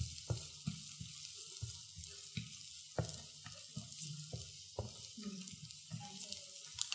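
Chopped onion and garlic sizzling in oil in a frying pan, with a steady hiss. A slotted spatula scrapes and knocks against the pan several times a second as the food is stirred.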